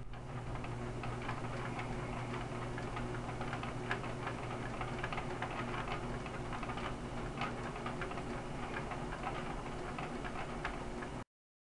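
A steady low hum with irregular ticks and clicks over it, which cuts off suddenly about eleven seconds in.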